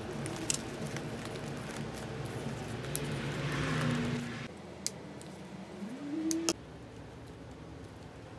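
Wrapping paper rustling with small clicks of handling as jute twine is tied into a bow around a paper-wrapped bouquet, over a steady room hum. A short rising tone ends abruptly about two-thirds through.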